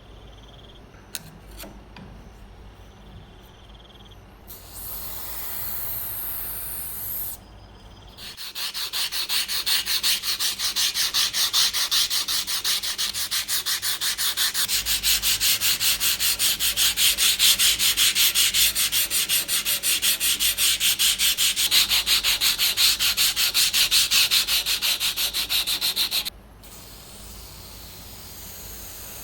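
Hand sanding of rusty metal: rapid, even back-and-forth abrasive strokes that go on for about eighteen seconds and stop abruptly. A shorter hiss comes a few seconds before the strokes begin.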